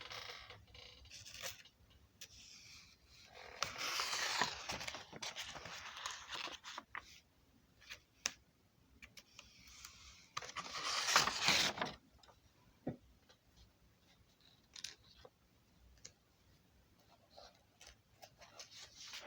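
Rustling and scraping handling noise close to the microphone in two longer stretches, with scattered sharp clicks between them.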